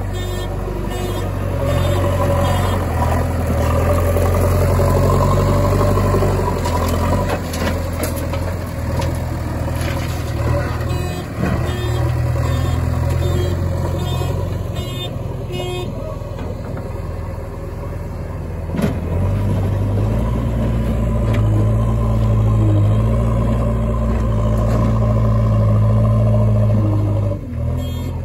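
Heavy diesel engine of earth-moving machinery running steadily, working harder and louder from about two-thirds of the way in, with an occasional sharp knock.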